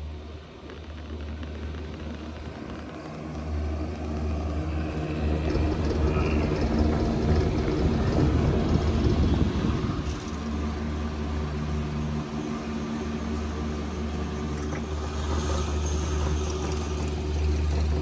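Steady low rumble while riding a chairlift, louder for several seconds in the middle.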